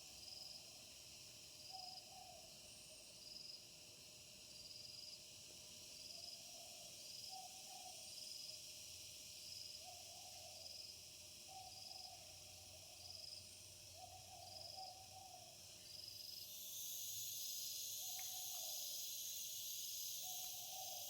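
Night animal and insect sounds: a short, low call repeated every second or two, often in pairs, over an insect chirping at a steady pace about once every second and a bit. A high, even insect drone grows louder about three-quarters of the way in.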